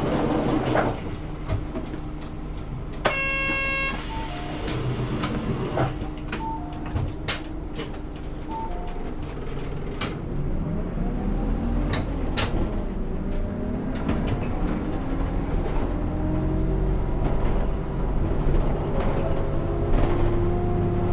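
A city bus's diesel engine idles at a stop. An electronic chime sounds about three seconds in, followed by a few short beeps. From about ten seconds in, the engine note rises as the bus pulls away and gathers speed.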